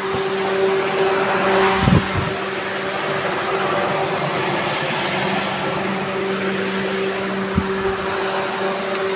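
Plate shearing machine's motor running with a steady hum and hiss. A dull knock comes about two seconds in and another near the end.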